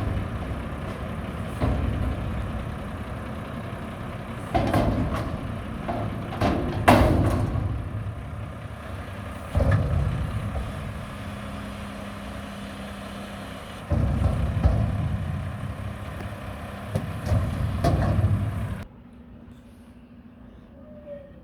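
Mack garbage truck with a McNeilus front-loader body, its diesel engine rising and falling in repeated surges, with sharp knocks and clanks among them. The sound drops away suddenly near the end.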